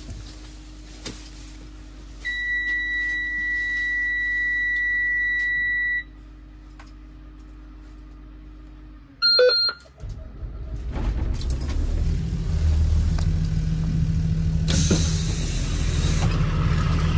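A dashboard warning buzzer sounds one steady high tone for about four seconds. About nine seconds in a short chime sounds, then the school bus's diesel engine cranks, fires and settles into a steady idle. A hiss joins near the end.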